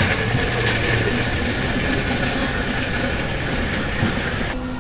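Steady vehicle noise with a steady high whine and a low hum. It cuts in and out abruptly.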